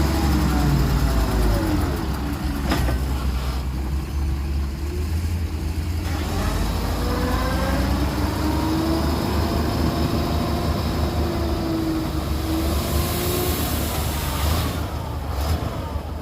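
Heavy diesel earthmoving machinery running under a low, constant rumble, its engine pitch dropping and rising as the revs change. There is a sharp knock about three seconds in and a few more sharp sounds near the end.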